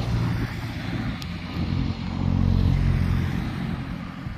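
A motor vehicle's engine going by on the road, building to its loudest about two to three seconds in and then fading away.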